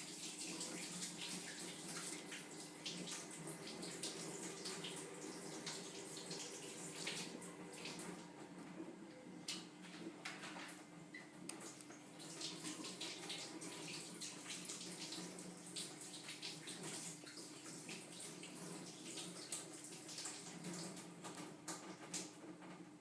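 Kitchen tap running steadily into a sink while raw chicken breasts are rinsed under it, with small irregular splashes and patters of water off the meat.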